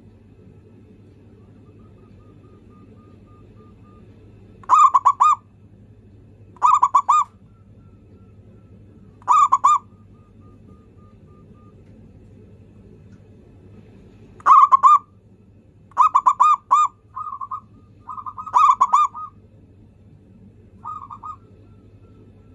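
Zebra dove (perkutut) cooing: a series of short phrases, each a quick run of staccato notes, spaced a few seconds apart. A faint steady low hum lies beneath.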